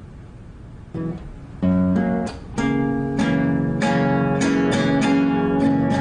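Acoustic guitar played in strummed chords, starting with a plucked note about a second in and then strummed over and over.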